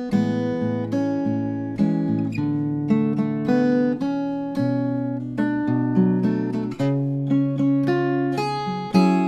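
Solo acoustic guitar played fingerstyle: plucked bass notes under a ringing melody and chord tones, a new note picked about every half second.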